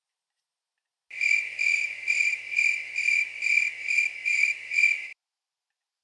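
Cricket chirping sound effect played back: about nine evenly spaced high chirps, roughly two a second, starting about a second in and cutting off sharply about a second before the end.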